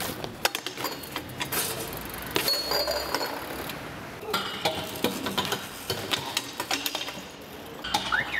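A BMX bike clanking and clicking against a low steel rail and paving stones: a string of sharp metal clicks and knocks.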